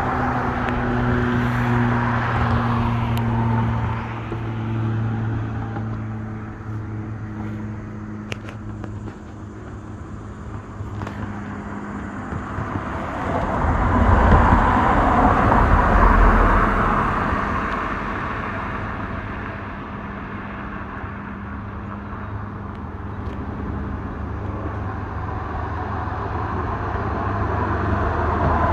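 Road traffic: a motor vehicle's engine hum for the first several seconds, then a swell of noise around halfway through, as of a car going past.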